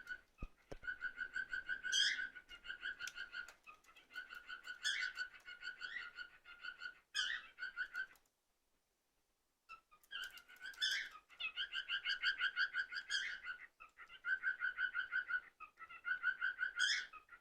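Cockatiel chattering in fast runs of short repeated chirps, several per second, with a few sharp rising whistle-like notes. The calling breaks off for about a second and a half roughly halfway through, then resumes.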